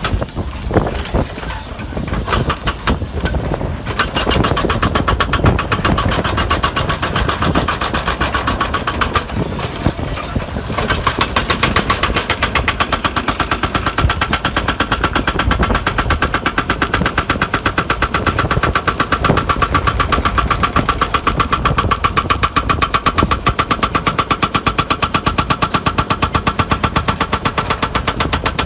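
Excavator-mounted hydraulic rock breaker hammering its chisel into rock with rapid, evenly spaced blows. It breaks off briefly a couple of seconds in and again around ten seconds in.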